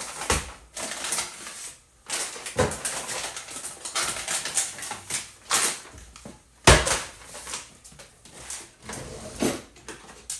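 Plastic and paper dog-treat bags crinkling and rustling as they are handled, with irregular sharp clicks and knocks of things set down on a countertop; the loudest knock comes about two-thirds of the way through.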